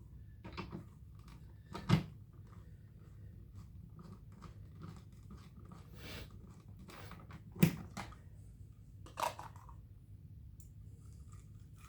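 Plastic parts of an upright vacuum's housing handled during reassembly: scattered light clicks and rattles, with a sharp knock about two seconds in, another near eight seconds, and a smaller one shortly after.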